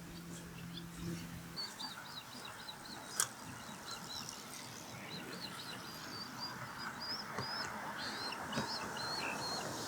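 Osprey calling at the nest: a long series of short, high, whistled chirps, repeated several times a second. A low steady hum fades out after about a second and a half, and a single sharp click comes about three seconds in.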